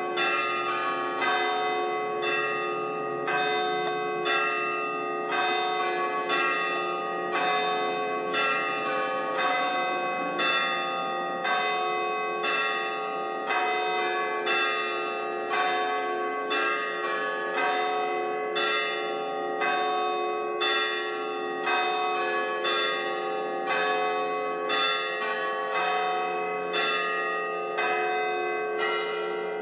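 Church bells ringing a steady, even run of strokes, about one and a half a second, each stroke's tones ringing on beneath the next.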